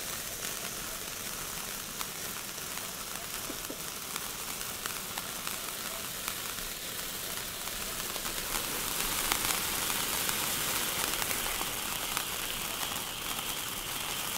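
Spark fountain on an Explode 'Pink Lady' firework toy car burning: a steady hiss with scattered crackles, growing louder about halfway through.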